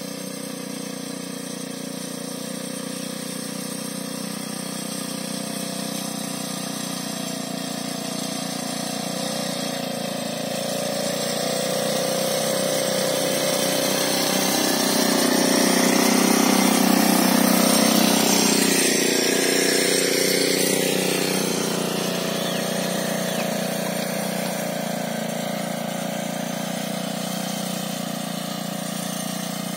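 Small engine of a 3.38 hp walk-behind power weeder running steadily under load as it weeds between crop rows. It grows louder as the machine comes close, is loudest a little past halfway, then fades as it moves away.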